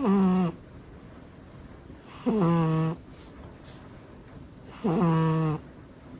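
A cat snoring: three short, pitched snores about two and a half seconds apart, each lasting about half a second.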